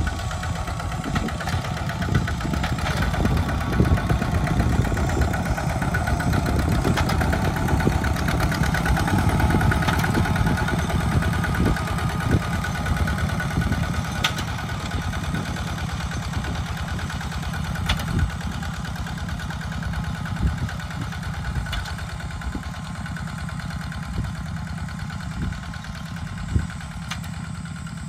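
Two-wheel walk-behind tractor's single-cylinder diesel engine running steadily under load while it pulls a plow through dry soil. A few sharp knocks stand out over the engine.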